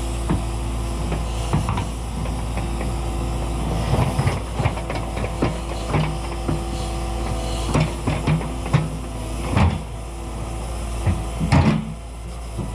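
Cat 314E excavator's diesel engine running steadily while the machine works, with repeated short clunks and rattles from the bucket and machine as it grades mud; the loudest knocks come about nine and a half and eleven and a half seconds in.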